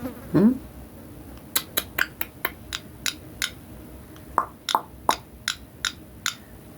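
A run of about eighteen sharp, irregular clicks over some five seconds, a few of them with a slight ringing tone.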